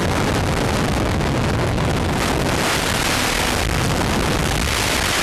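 Loud, steady rush of freefall wind buffeting the camera's microphone as a skydiver leaves the aircraft.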